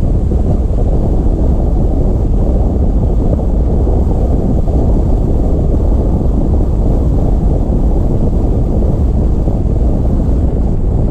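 Steady low rumble of a Toyota FJ Cruiser driving along a paved road: wind buffeting the microphone over tyre and road noise, with no distinct engine note.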